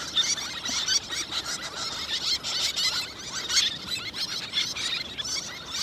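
Many terns calling at once: short, high, sharp calls overlapping without a break.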